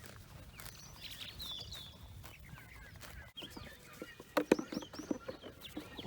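Birds chirping in short falling calls, then a quick cluster of sharp knocks and scuffs about four and a half seconds in, typical of animal hooves shifting and stepping among the farm animals.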